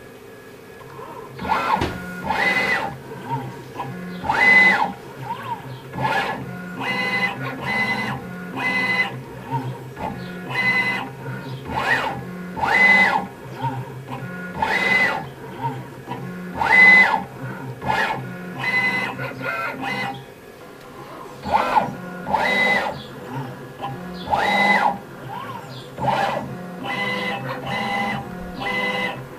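Stepper motor of a CNC 4th-axis rotary fixture driving it through a toothed belt. It makes short repeated indexing moves about every two seconds, each with a motor whine whose pitch rises and falls as the axis speeds up and slows down.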